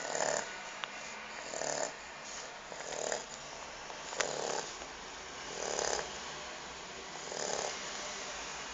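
Shar-pei dog snoring, like a little pig: six rasping snores in a steady rhythm, about one every one and a half seconds.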